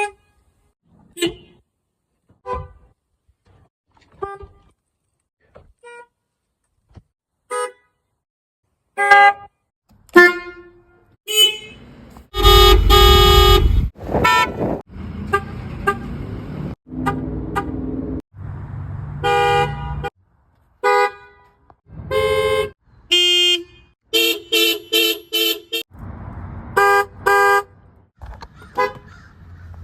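A series of different car horns sounding one after another: short beeps and toots, each with its own pitch, quiet at first and much louder from about a third of the way in. The louder ones include a blast of about a second and a half near the middle and a quick run of repeated beeps about three-quarters through.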